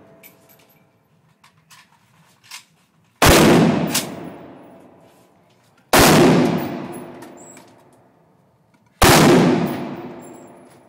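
Three gunshots about three seconds apart, each followed by a long echoing decay, with a few faint clicks before the first shot.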